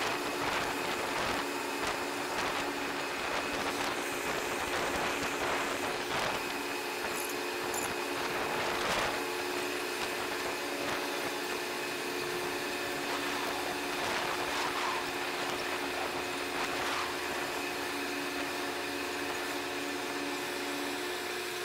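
Steady mechanical hum of a ferry's machinery: a drone of several held low tones under a steady hiss, with a few faint clicks.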